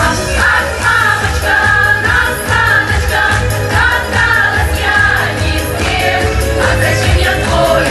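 A group of amateur singers singing a song over a backing track with a steady, pulsing bass line.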